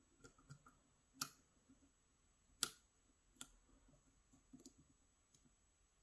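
Faint, irregular clicks and ticks of a lock pick working the sliders of an Evva EPS slider-type cylinder lock under tension, as the picker tries to push slider 5 down. Two sharper clicks come about a second and about two and a half seconds in.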